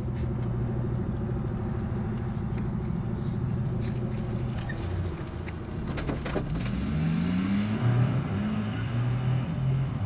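Pickup work truck towing a trailer, its engine running steadily as it pulls away, then rising in pitch a few times in the second half as it accelerates.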